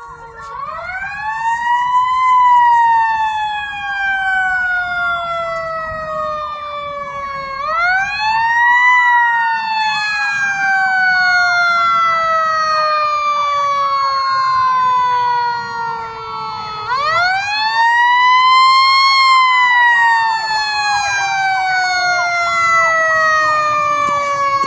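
Federal Q mechanical fire siren wound up to its peak three times, each time rising fast and then coasting slowly down in pitch. A steady, regularly interrupted tone sounds underneath.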